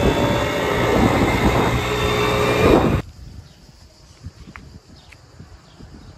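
Moped engine running steadily while riding, with wind rushing over the microphone. It cuts off abruptly about three seconds in, leaving faint outdoor sound with a few light clicks.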